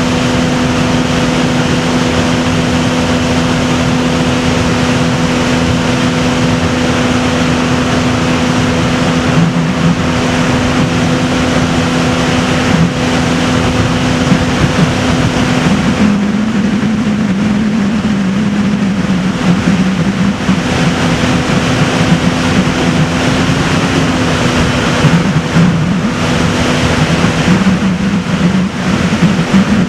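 Boat engine running steadily. From about halfway through, a second, lower engine note rises and wavers beneath it.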